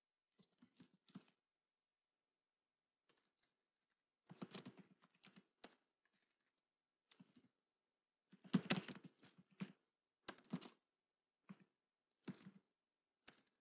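Computer keyboard typing: faint keystrokes in short, irregular runs with pauses between them, a little louder about two thirds of the way through.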